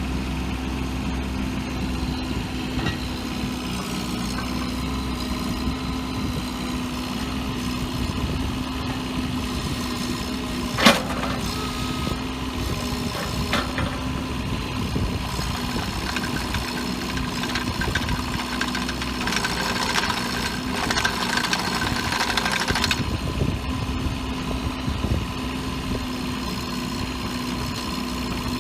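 Bobcat 324 compact excavator's diesel engine running steadily at idle, with one sharp knock about eleven seconds in and a few seconds of louder hissing noise a little after the halfway point.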